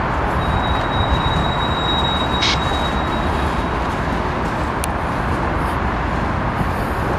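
Freight train boxcars rolling past, a steady rumble of steel wheels on rail. A thin high wheel squeal holds from about half a second in to about three seconds, and there is a sharp clank in the middle of it.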